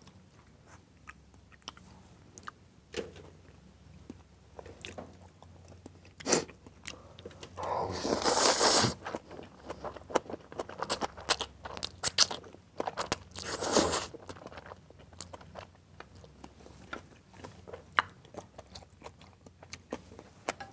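Close-miked eating sounds: chewing and crunching of spicy black-bean instant noodles with green onion kimchi, wet clicks throughout. Two long, loud noodle slurps come about eight seconds in and again about thirteen seconds in.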